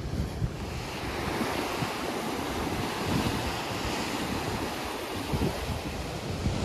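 Sea waves washing onto the shore, one wash swelling and easing off across the middle, with wind buffeting the microphone.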